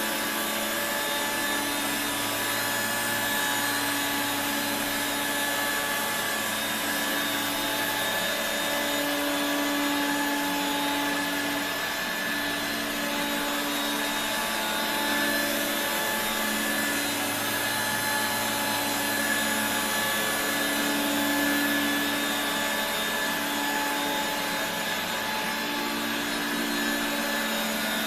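1985 Regina Electrikbroom PowerTeam lightweight stick vacuum running steadily: a continuous motor whine and airflow noise, with a low hum that wavers in pitch every few seconds.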